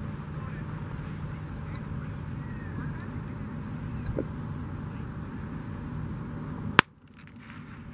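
A steady insect buzz with scattered bird chirps, then about seven seconds in a single sharp bang, by far the loudest sound, after which the background briefly drops away.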